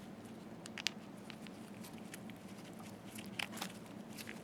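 Faint scattered clicks and taps of small metal slit-lamp parts being handled and fitted together, the clearest about a second in and two close together near the end, over a low steady hum.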